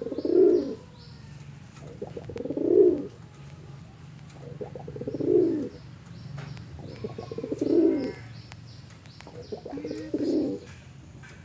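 Domestic pigeons cooing: a deep, rolling 'snoring' coo repeated five times, about every two and a half seconds. Faint high chirps come in between the coos.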